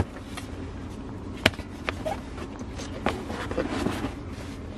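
Handling noise from paper pads and sketchbooks being shuffled: faint rustles and light taps over a low steady hum, with one sharp click about one and a half seconds in.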